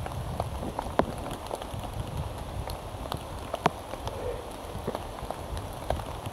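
Rain falling on a survival blanket shelter: irregular drop clicks over a steady hiss, with a low rumble of wind.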